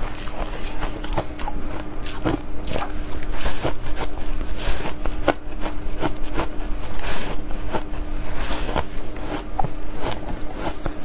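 Crunching and chewing of a block of shaved ice coated in matcha powder, with many sharp irregular cracks as the ice is bitten and broken between the teeth. A faint steady hum runs underneath.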